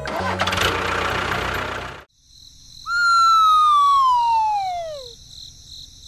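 A noisy, engine-like running sound stops abruptly about two seconds in. About a second later comes one long whistle that falls steadily in pitch over about two seconds, over a steady, pulsing high-pitched chirring.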